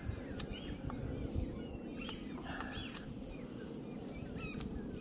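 A knife scraping and shaving the wood of an ash bow stave, a few short strokes with sharp clicks. Birds chirp faintly under a steady low background rumble.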